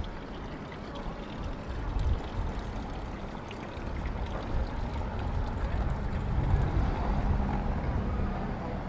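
City street noise: a steady low rumble of traffic, with a motor vehicle's engine hum growing louder from about halfway through.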